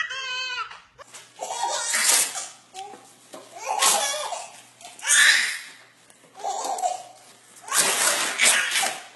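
A baby's high squeal, cut short about a second in, then a baby's belly laughter in about five breathy bursts with short pauses between.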